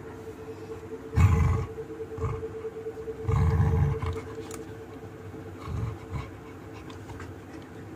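Yellow Labrador retriever making low, rough grumbling groans: two louder ones about a second and three and a half seconds in, and fainter ones between and after.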